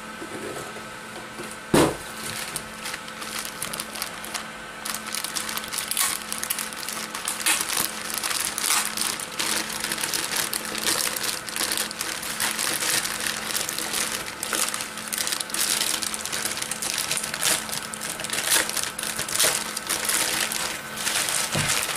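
Plastic packaging bags (a clear zip-lock bag and a pink anti-static bubble bag) crinkling and rustling as they are handled, with one short, louder thump about two seconds in.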